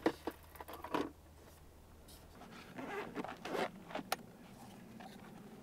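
Folding portable solar panel being packed away: faint rustling and zipping of its fabric case, with a sharp click about four seconds in.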